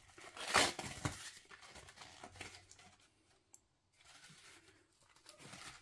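Cardboard of a frozen pizza box and its paper wrapper being handled and pulled open: two short rustling strokes in the first second, then faint occasional rustles.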